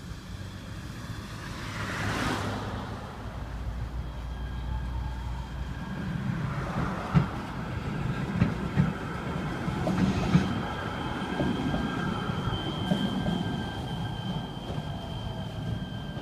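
Metro Expo Line light-rail train (Kinkisharyo P3010) running along street track, with rumbling, a few sharp clicks of the wheels on the rails, and a steady high whine that sets in about two-thirds of the way through. A vehicle rushes by near the start.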